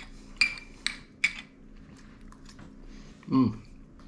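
A metal fork clicks against a ceramic plate three times in the first second and a half while picking up food. About three and a half seconds in comes a short voiced hum from the eater, the loudest sound.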